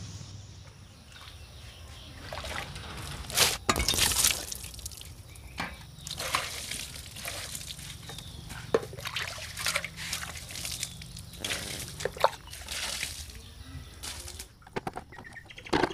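Water poured by hand from a container over a muddy motorcycle, splashing and running off the frame in a series of uneven pours.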